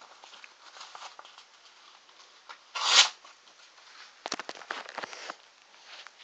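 Gerber pocket knife blade slicing through a sheet of paper: a short swelling rasp about halfway through, the loudest sound, followed by a run of crackling paper rustles.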